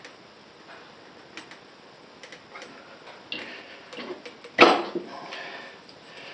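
Light scattered clicks and knocks from a tire lever working a motorcycle tire bead on a manual tire changer, with one loud sharp clack about four and a half seconds in.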